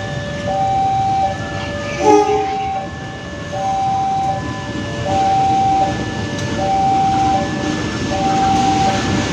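A train rumbling past while a two-tone electronic level-crossing warning signal alternates high and low, about one high-low cycle a second. A short horn blast sounds about two seconds in.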